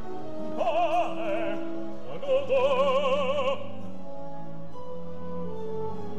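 An opera singer singing two sustained high phrases with wide vibrato over held orchestral chords. The first phrase is short, about half a second in, and the longer second one begins a little after two seconds.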